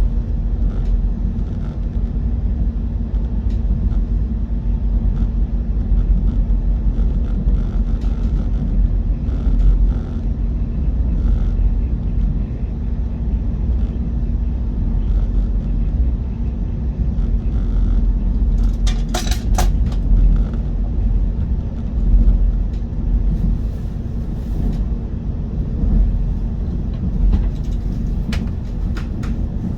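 KTX-EUM train running, a steady low rumble with brief sharp clicks about two-thirds of the way through.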